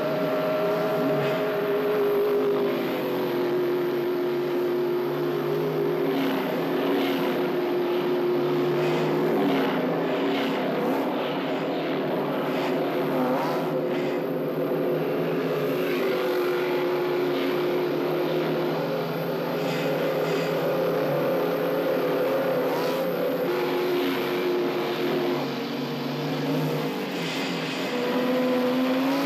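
A pack of motorcycles riding together, many engines running at once, their pitches shifting up and down as they rev and pass. It is heard as an old film soundtrack with the deepest bass missing.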